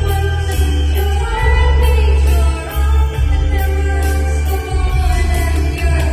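Singing over a pop backing track with a heavy bass and a steady beat of cymbal strikes, played loud through a sound system during a sound check.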